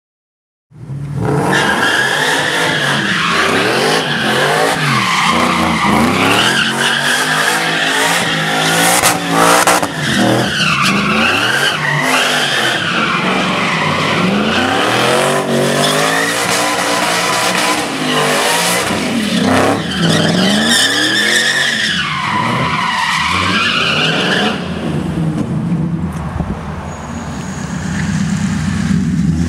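Ford F100 pickup doing donuts: the engine is revved hard, its pitch rising and falling, while the rear tyres squeal without a break. About three-quarters of the way through the squeal stops and the engine drops to a lower run, then revs up again near the end.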